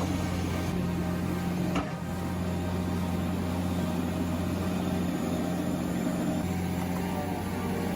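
Heavy machine's diesel engine running steadily with a low hum, and a single sharp click about two seconds in.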